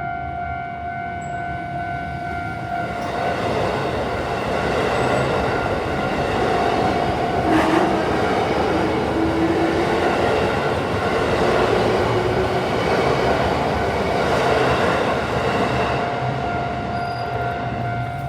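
A Japanese level-crossing warning bell rings steadily while an electric train passes over the crossing. The train's running noise swells about three seconds in and dies away around sixteen seconds, with a faint rising whine in the middle of the pass.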